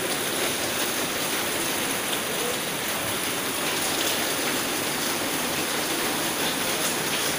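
Steady rain falling onto standing floodwater, a continuous even hiss.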